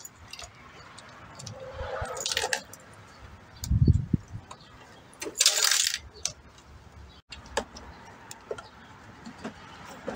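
A bunch of keys jangling as one key is used to pry a metal hose clamp onto the air-intake duct, with the plastic intake housing knocking and rubbing under the hands. There is a dull thump about four seconds in and a short scrape just before six seconds.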